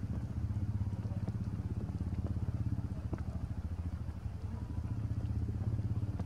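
A low engine running steadily, a rapid even throb.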